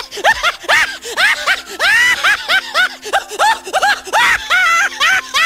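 Very high-pitched, squeaky laughter: a quick run of short rising-and-falling "ha" sounds, several a second, over background music.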